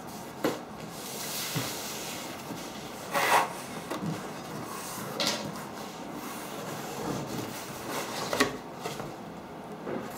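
A large cardboard shipping box being slid and turned on a wooden tabletop and its lid opened: cardboard scraping on wood, with scattered knocks and rustles, the loudest about three seconds in.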